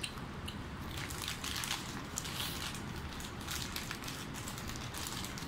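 Paper food wrapper crinkling and rustling in short crackles as a sandwich is picked apart by hand, over a steady low background hum of the eating area.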